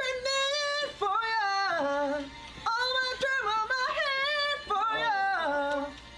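A young man singing unaccompanied in a high falsetto, about four short phrases of held notes that slide down at the end of each, with brief breaks between them.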